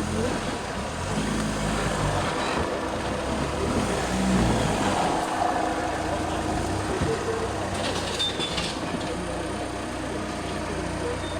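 Off-road car driving, its engine note rising and falling.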